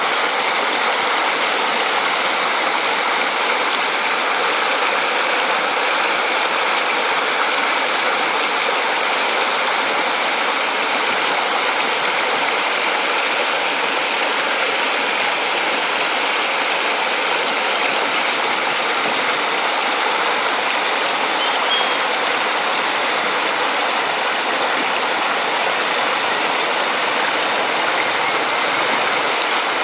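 Shallow rocky stream rushing over and around boulders in small rapids: a steady, even rush of churning water.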